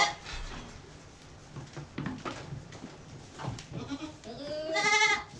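A Boer goat bleats once, loudly, near the end, the call rising in pitch as it begins. Before it there are only faint scattered knocks and rustling.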